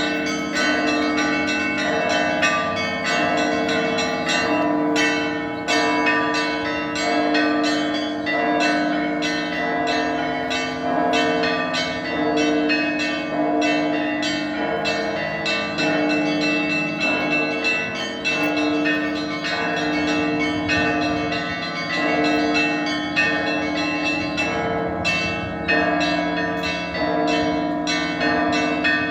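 Russian Orthodox monastery bells rung together in a peal: small bells struck rapidly many times a second over deeper bells sounding every second or two, in a steady, unbroken rhythm.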